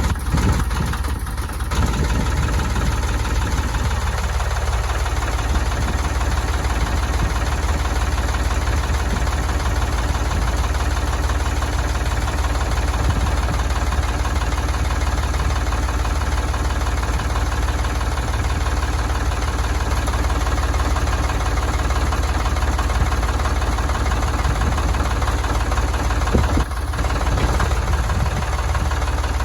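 Ford 3930 tractor's three-cylinder diesel engine running steadily, with a brief dip near the end.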